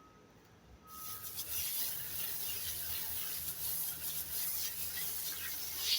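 Water spray hissing steadily onto the air conditioner's coils during cleaning, starting about a second in, with a low hum underneath. Faint repeating beeps of a reversing vehicle sound briefly at the start.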